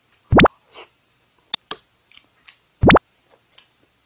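Two short, loud bloops that sweep quickly upward in pitch, about two and a half seconds apart, over faint chewing and lip-smacking as a man eats.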